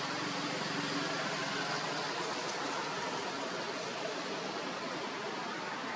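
Steady rushing hiss of outdoor noise at an even level, with no distinct calls or knocks standing out.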